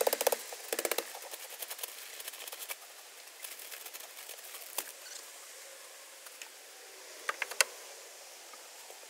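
Loose hemp bedding rustling and crackling as it is poured from a plastic bag into a chicken coop and spread by hand. The crackle is densest in the first second, then thins to scattered small clicks, with a couple of sharper clicks near the end.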